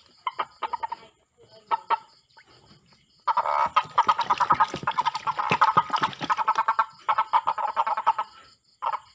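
Frogs croaking in rapid pulsed calls: a few short bursts, then a long dense run of overlapping croaks from about three seconds in that breaks off shortly before the end, with one more short call after it.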